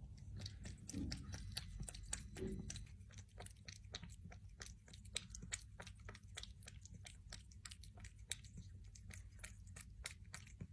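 A cat eating, crunching its food with quick, sharp bites, about three or four a second.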